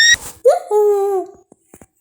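A short high-pitched squeal, then a longer whining, whimper-like sound that wavers and falls in pitch before stopping well before the end.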